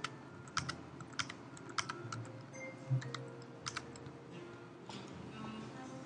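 Typing on a computer keyboard: irregular key clicks, a dozen or so in the first four seconds, then only a few.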